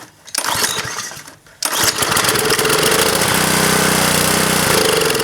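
Small lawn-mower-type engine being cranked, firing briefly at first, then catching about a second and a half in and running steadily. It is running on starting fluid sprayed into the carburetor throat, a sign that it has enough spark and compression.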